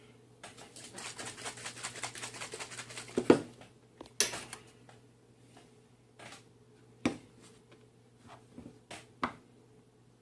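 Light handling clicks and taps of small hard objects: a quick rattling run of clicks for about three seconds, then a few separate knocks and taps, over a faint steady hum.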